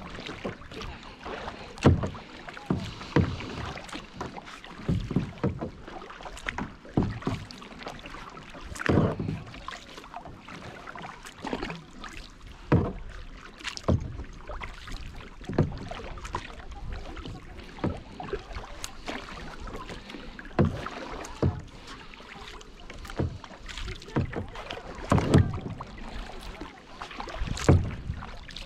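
Kayak paddle strokes: the blades dipping and splashing into the water on alternating sides every second or two, with a few sharper knocks among the splashes.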